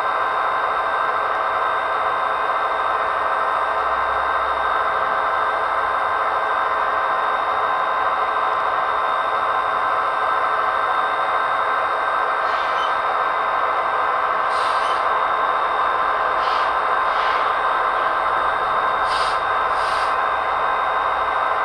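H0-scale model train running along the track, heard up close from on board: a steady whine from the small electric motor over the rolling of the wheels. Several short clicks come in the second half, as the wheels pass rail joints or points.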